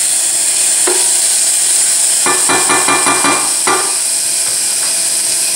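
Onions, garlic and tomatoes sizzling as they fry in ghee in a stainless steel pot, with a metal spoon stirring and scraping against the pot. The scraping comes as a run of quick strokes about two to four seconds in.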